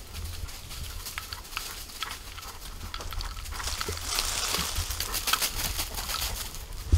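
Footsteps crunching and rustling through dry oak leaf litter and twigs, with a steady low wind rumble on the microphone. The crunching grows louder and busier about four seconds in, and a single sharp knock comes near the end.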